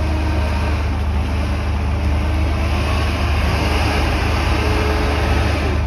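Steady low drone of an off-road vehicle's engine heard from inside its cabin, with an even rushing noise over it and no sudden changes.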